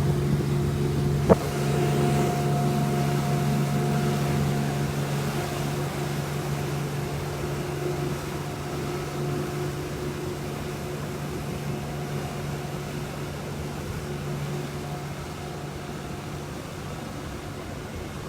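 Motorboat engine running at a steady pitch, slowly growing fainter. A single sharp click about a second in.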